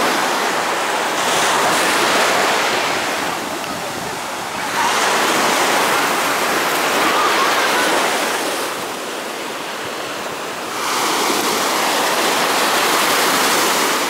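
Sea surf washing and breaking close by, a steady rush of water. It comes in three surges, with two short lulls between them.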